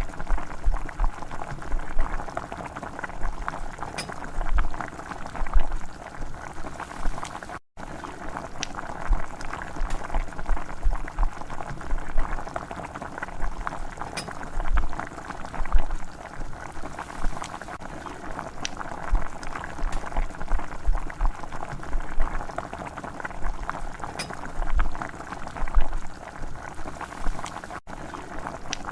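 Chicken curry bubbling in a pot as it simmers: a steady run of small irregular pops and blips, cutting out for an instant twice.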